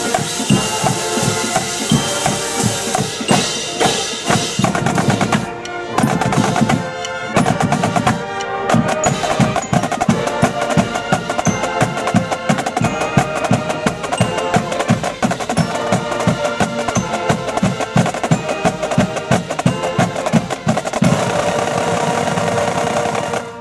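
College marching band drumline playing snare drums, bass drums and crash cymbals in a fast, driving beat, with brass and saxophones playing along.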